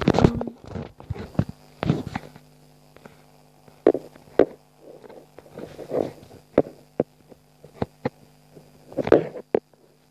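Irregular knocks, taps and short rustles of a glass jar being handled and moved about close to the microphone, over a faint steady hum.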